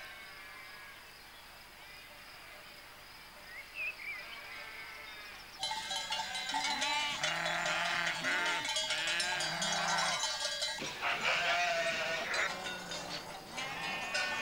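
A flock of sheep bleating, with the bells on their collars clanking as they move. Faint at first, then close and loud from about halfway through, with many overlapping bleats.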